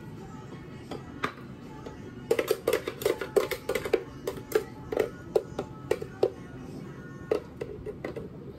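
Acoustic guitar pop song playing as background music. Over it, a quick irregular run of sharp clicks and knocks starts about two seconds in and lasts about four seconds, with a few more near the end: clatter from making a drink at a cafe counter.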